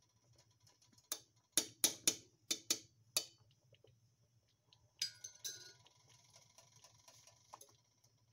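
A run of sharp hard clicks and knocks, about seven in two seconds, then a short clatter about five seconds in, over a faint steady low hum.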